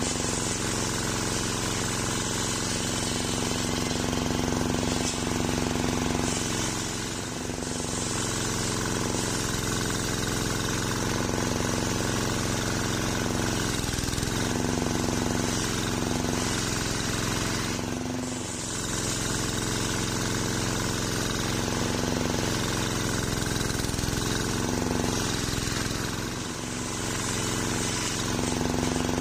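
Homemade table circular saw ripping a waru log lengthwise: a steady machine drone with the blade's whine, its pitch sagging briefly every few seconds as the blade bites into the wood under load, then recovering.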